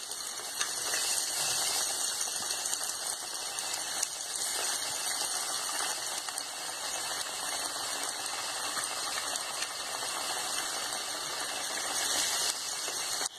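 Breaded bread-chicken pieces deep-frying in hot oil in an aluminium pan: a steady sizzle of bubbling oil with small pops.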